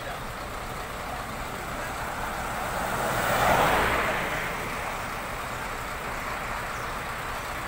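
A road vehicle passing by: its noise builds to a peak about three and a half seconds in, then fades away.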